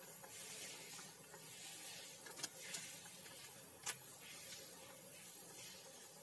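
Faint, steady hiss of okra sambar simmering in a pan, with a few sharp clicks and crackles from the plastic spice packet as powder is shaken in. The loudest clicks come about two and a half and four seconds in.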